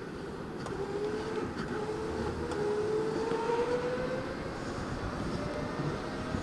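Electric go-kart motor whining under acceleration, its pitch climbing slowly and steadily, over a steady rush of noise.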